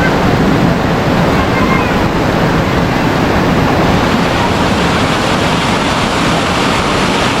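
Loud, steady rush of water, even and unbroken throughout.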